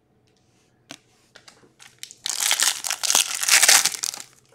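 Foil trading card pack being torn open and crinkled by hand: a few small crackles, then loud crinkling of the wrapper for about two seconds, starting about two seconds in.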